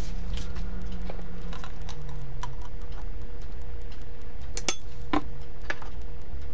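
Metal spoon scraping and clinking against a ceramic bowl while scooping in mayonnaise, with light scattered clicks and one sharper clink about two-thirds of the way through. A steady low hum runs underneath.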